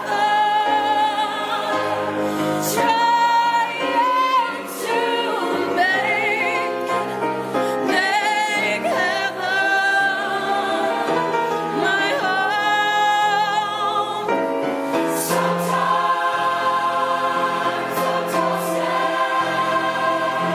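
High-school choir singing continuously, with wavering sustained notes.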